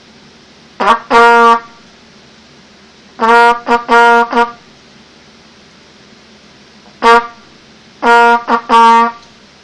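Mendini trumpet sounding Morse code: short and long blasts on one steady note, in three groups about two seconds apart.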